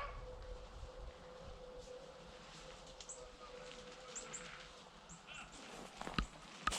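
Faint outdoor ambience: scattered short, high chirps over a faint steady tone that fades out past the middle, then a few sharp snaps near the end.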